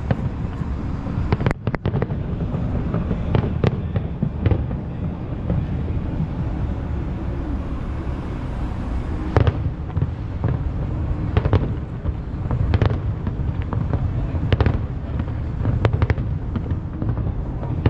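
Aerial firework shells bursting in an irregular run of sharp bangs, about one or two a second, over a constant low rumble.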